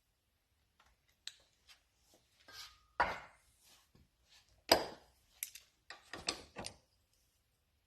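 Hand tools clinking, knocking and scraping on a rusted cast brake wheel cylinder while its seized piston is worked loose. There are scattered light clicks and two sharper knocks, about three seconds in and just before five seconds in, which are the loudest.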